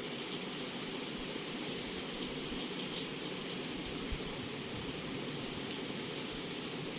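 Heavy rain falling steadily against a window, with a few sharp drop ticks here and there, the loudest about three seconds in.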